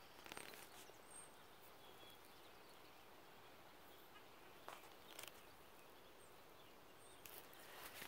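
Near silence: faint outdoor ambience with a few brief, faint high chirps and a few light rustles or clicks.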